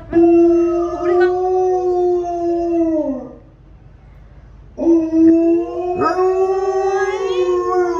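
Alaskan Malamute howling like a wolf: two long howls with a short pause between them. The first holds a steady pitch and then slides down at its end.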